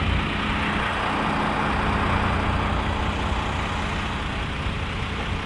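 Heavy truck's diesel engine idling: a steady low hum with an even rushing noise over it.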